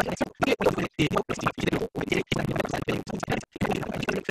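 Scratchy, crackling noise from an open microphone on a video call, cutting in and out with short silent gaps several times a second.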